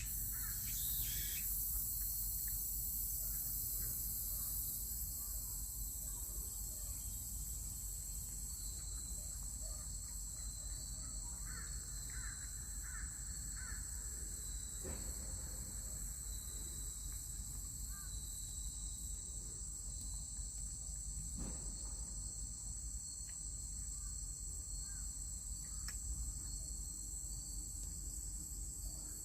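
Steady high-pitched chirring of a crickets' chorus, with a few faint bird calls near the middle.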